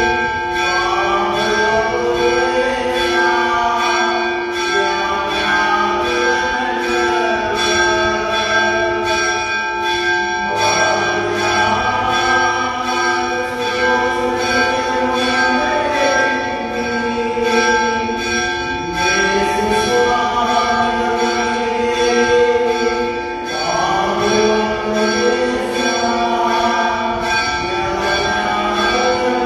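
Church bells ringing steadily, with singing carrying a melody over them.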